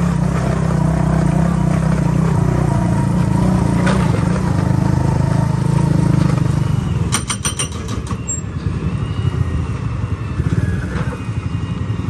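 Motorcycle engine running as the bike rides along. About seven seconds in, the engine note drops and turns uneven as the bike eases off, with a few sharp clicks.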